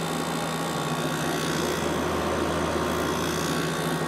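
2014 GE 8,100 BTU window air conditioner running on low fan, its GE compressor humming steadily under the rush of the fan air.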